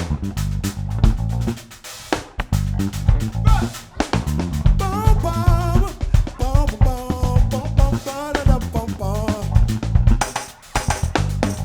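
Live band playing an instrumental groove on drum kit and bass guitar. A wavering lead melody line runs over the middle of it, and the band drops out briefly about two, four and ten seconds in.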